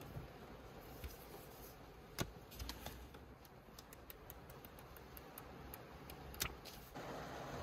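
Paper handling: a folded paper instruction leaflet being unfolded and flipped by hand, giving faint crackles and two sharper snaps of the paper, one about two seconds in and one past six seconds. A steady low hiss comes up near the end.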